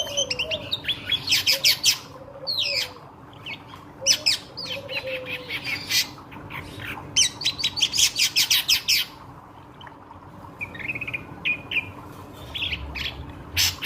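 Ashy drongo singing in bursts of rapid, harsh chattering notes, with a few lower whistled notes in the first few seconds.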